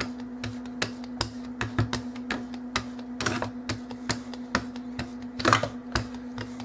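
Rubber brayer being rolled and pressed on an ink pad to ink it, making a run of irregular tacky clicks and crackles, several a second, louder about three and a half and five and a half seconds in. A steady low hum runs underneath.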